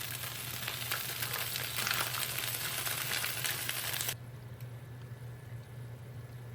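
Food sizzling and crackling in a hot pan, which cuts off abruptly about four seconds in and leaves only a faint low hum.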